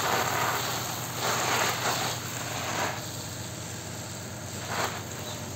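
Water spray from a garden hose hitting broad plant leaves and soil, rinsing dust off them. It makes a hiss that swells in several surges as the spray sweeps across, over a steady low hum.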